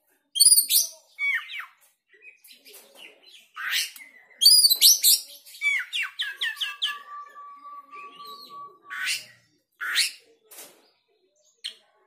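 Oriental magpie-robin singing a varied song of sharp whistles and chirps in separate phrases. About six seconds in comes a quick run of falling notes, then one long steady whistle lasting about two seconds.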